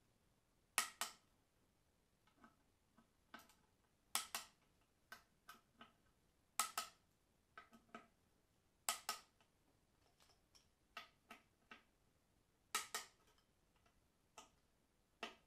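Torque wrench clicking as manifold bolts are tightened: sharp metallic clicks, the loudest in quick pairs every two to four seconds, with fainter ratchet ticks between.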